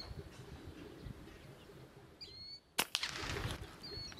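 Brocock Concept XR .25 PCP air rifle firing a single shot, a sharp crack nearly three seconds in, followed at once by a fainter second click. Short sparrow chirps come shortly before the shot and again near the end.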